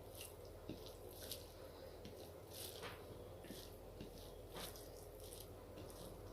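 Faint wet, squishy eating sounds: a person chewing soft rice and curry, with a scatter of small clicks and squelches.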